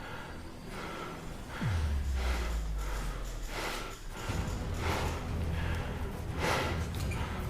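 A person breathing hard in repeated short puffs. A low steady hum comes in with a falling swoop about one and a half seconds in, breaks off about four seconds in, then resumes.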